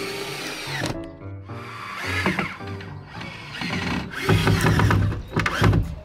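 A power tool running in short bursts, once about two seconds in and again more loudly over the last two seconds, over background music.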